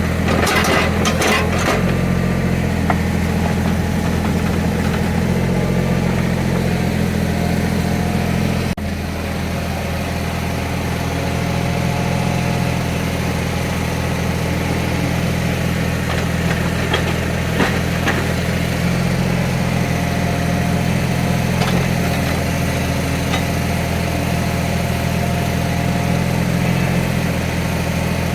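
Small CAT excavator's diesel engine running steadily, its note shifting now and then as it takes load, with a few sharp knocks about a second in.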